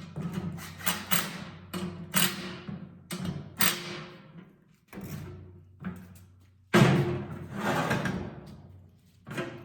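Metal parts and hand tools clanking and knocking as a mock-up transmission mount is fitted, in irregular strikes that each ring off briefly. A louder clank about seven seconds in rings on for more than a second.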